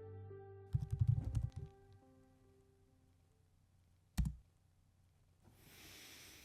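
Soft sustained music notes fading out, broken about a second in by a quick run of sharp clicks and knocks, then a single knock a few seconds later and a soft hiss that swells and fades near the end.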